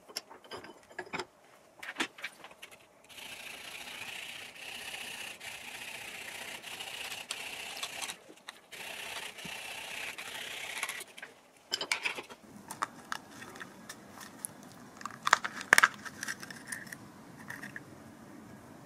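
Small hacksaw sawing through the plastic housing of an Airmatic compressor air filter held in a bench vise: a steady rasp of strokes for about eight seconds with a short pause midway. Then a scatter of clicks and a few sharper cracks of plastic.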